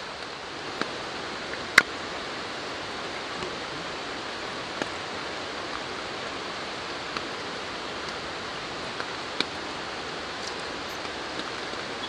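Steady hiss of light, drizzling rain. A few sharp clicks cross it, the loudest about two seconds in.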